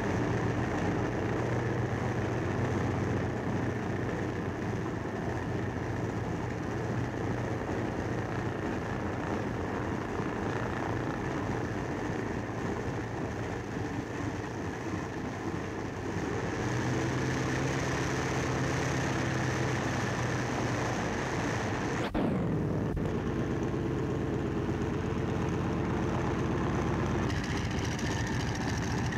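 The radial engine of a Vultee V-1A monoplane runs steadily, propeller turning, in a continuous engine drone. The drone grows a little louder at about 16 seconds in, and there is a sudden break at about 22 seconds before it carries on.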